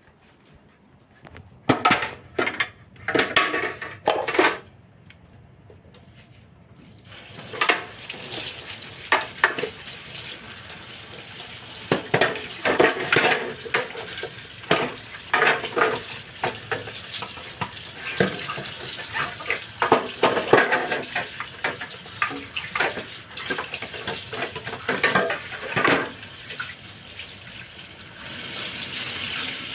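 Tap water running into a sink while dishes and containers are washed, with frequent clatters and knocks of the items against each other and the sink. A few loud clatters come first, the water starts about seven seconds in, and it runs harder near the end.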